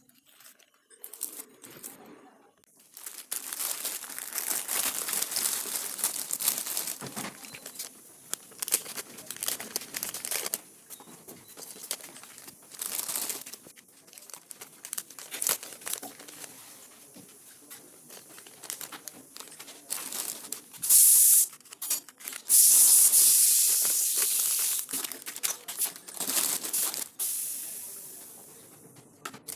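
Packaging being handled during an unboxing, crinkling and rustling in irregular bursts. There is a louder, longer tearing sound about three-quarters of the way through.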